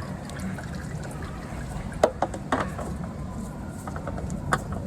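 A few sharp clicks and knocks, three close together about two seconds in and one more near the end, over a steady low hum: parts being handled as a new oil filter is fitted.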